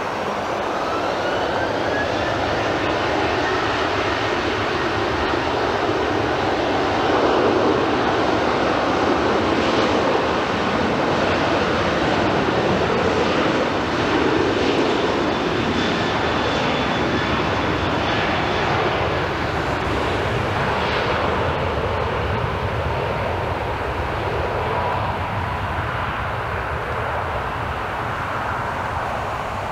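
Southwest Boeing 737 jet engines spooling up for the takeoff roll, a rising whine over the first few seconds under steady jet noise. The noise is loudest a few seconds in and then slowly fades as the airliner accelerates away down the runway.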